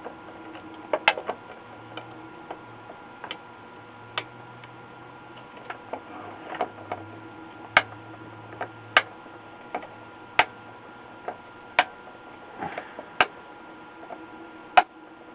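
Wire snips clipping off the excess leads of newly soldered capacitors flush with a circuit board: a sharp snip roughly every second, irregularly spaced.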